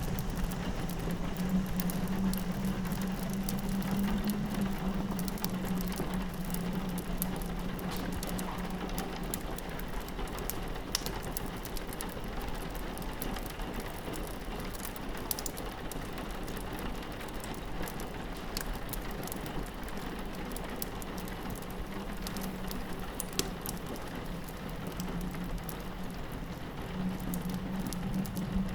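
Rain pattering on a window pane, mixed with a crackling wood fire's scattered small pops, as one steady ambience. A low, steady hum sits beneath; it fades out after about eight seconds and comes back near the end.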